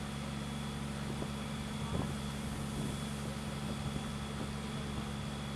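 Fire apparatus engine running steadily at the fireground, a constant low drone with no change in pitch, under the hiss of water streams flowing from the aerial ladder and a handline.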